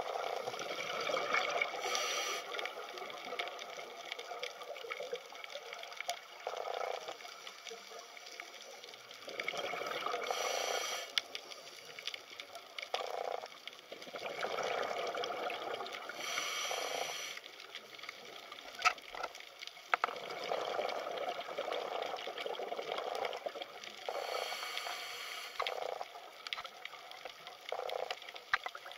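Water bubbling and sloshing heard underwater through the camera's housing, with louder rushes of bubbles about every six to eight seconds.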